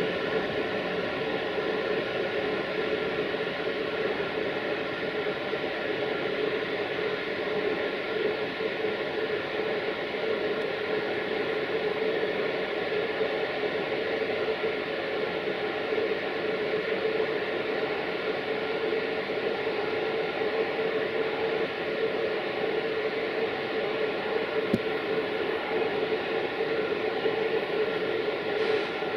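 Romanian 060-EA electric locomotive standing at the platform with its equipment running: a steady hiss carrying a few steady humming tones. One faint click sounds near the end.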